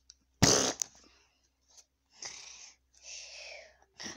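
A loud brief rustle of a hand brushing over the phone's microphone, then two breathy in-and-out breaths made by mouth, a person mimicking sleep.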